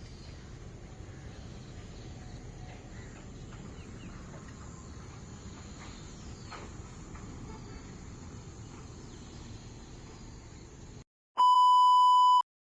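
Steady outdoor ambience with faint insect and bird chirps cuts off abruptly near the end. After a short silence, a loud electronic beep plays at one steady pitch for about a second.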